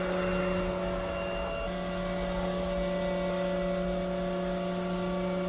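Fire engine's electric-hydraulic cab-tilt pump running with a steady hum as the cab tilts forward off the chassis.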